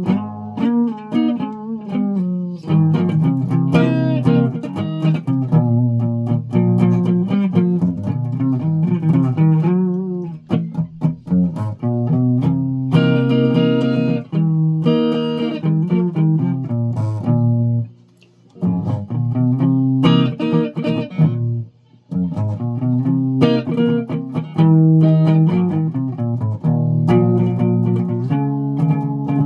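A plucked string instrument played note by note, with a line of single notes and chords. It breaks off briefly twice, a little past halfway.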